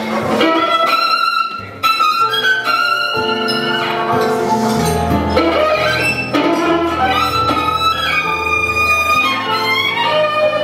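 Live violin playing a quick melodic line over stage-piano and acoustic-guitar accompaniment. About a second and a half in, the low accompaniment drops out briefly, then comes back with a steady bass line under the violin.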